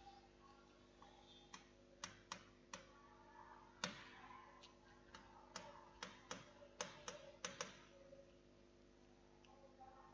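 Stylus tapping and scratching on a writing tablet as words are handwritten: irregular sharp clicks with short scratchy strokes between them, mostly from about two to eight seconds in, over a faint steady electrical hum.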